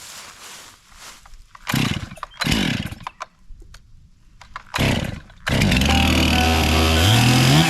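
Stihl chainsaw being pull-started: several short pulls that turn the engine over and sputter, then it catches about five and a half seconds in and runs steadily, revving up near the end.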